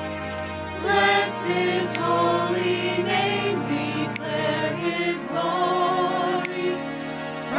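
A gospel choir singing held, wavering notes over sustained keyboard chords.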